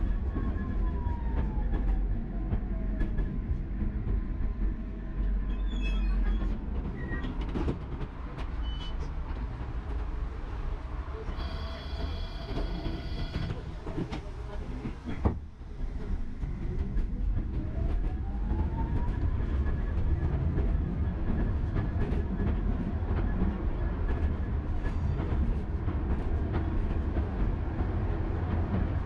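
Tram running with a low rumble, its traction motor whine falling in pitch as it slows. A brief high electronic signal sounds about twelve seconds in and a sharp knock follows a few seconds later. The motor whine then rises in pitch as the tram pulls away again.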